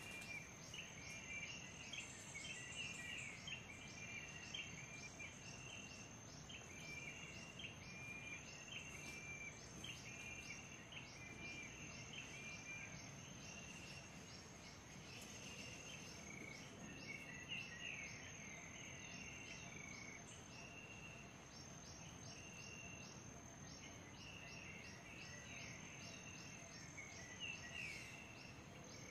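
Faint forest ambience: an insect trilling steadily on a high note with regular pulses, and small birds chirping and twittering throughout.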